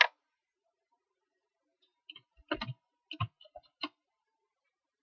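Computer keyboard keystrokes and mouse clicks in short clusters: a couple at the start, then a quick run of about a dozen between two and four seconds in.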